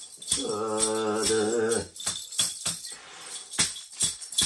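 Small metal ritual bells of a Mongolian shaman jingling in a quick, uneven rhythm, about three to four shakes a second. Near the start a low chanting voice holds one wavering note for about a second and a half.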